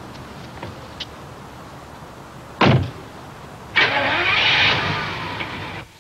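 A car door slams shut with a heavy thud about two and a half seconds in. About a second later a louder rushing noise starts, lasts about two seconds, then cuts off.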